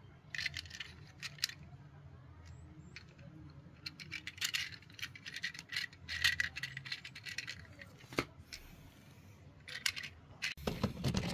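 Small hard toy parts clicking and rattling in irregular clusters as a toy is handled, with a louder knock and rustle near the end.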